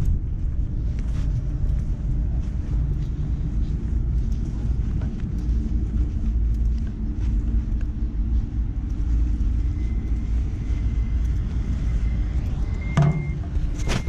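Steady low rumble and hum from a standing ES2G Lastochka electric train at the platform, mixed with handling and wind noise on a moving handheld microphone. A faint high repeating beep sets in after about nine seconds, and a sharp knock comes near the end.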